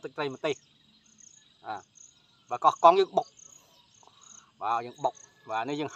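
Crickets chirping in short, repeated high pulses over a steady high insect drone. A man speaks in short phrases over them.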